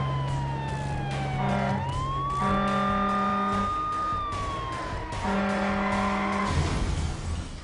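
Fire truck running with its siren: one wailing tone slides slowly down, sweeps quickly back up, holds, then falls again. Three blasts of the truck's air horn cut across it, under a steady engine note.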